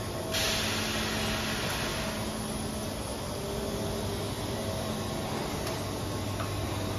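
PUR glue rolling machine running with a steady hum and whir, with a burst of hiss starting about half a second in that fades over the next two seconds.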